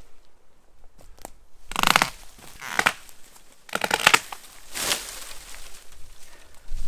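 Branches and twigs of a small cherry tree crackling and snapping in four short bursts about a second apart.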